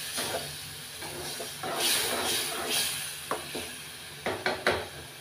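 Tomato-and-onion masala sizzling in a steel kadai as it is stirred with a spoon, with a few short scrapes and knocks of the spoon against the pan near the end.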